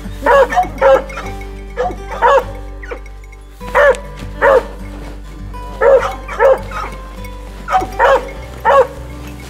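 Hunting hound barking at a mountain lion treed above it: loud, short barks, many in quick pairs, with a pause of about a second near the middle.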